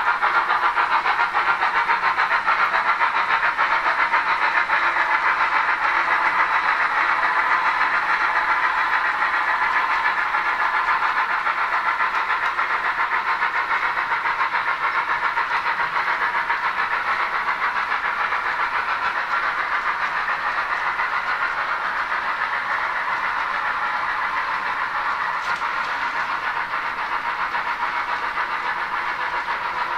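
H0-scale model freight train running past behind two model steam locomotives: a steady running noise of the train on the track that slowly grows quieter as it moves off.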